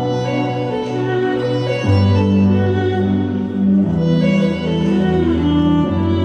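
Performance music with sustained bowed strings over held low bass notes, the bass changing pitch every couple of seconds.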